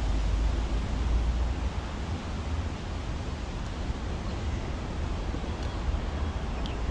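Wind on the microphone: a steady low rumble under an even hiss of moving air.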